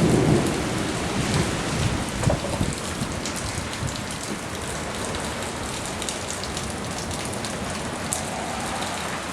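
Windstorm gusts: a steady rushing hiss, with low rumbling buffets of wind on the microphone, heaviest in the first couple of seconds.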